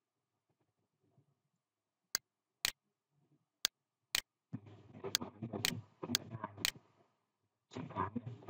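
Computer mouse clicks: about eight sharp single clicks, the first about two seconds in, roughly half a second apart, with a busier, lower sound under them in the second half.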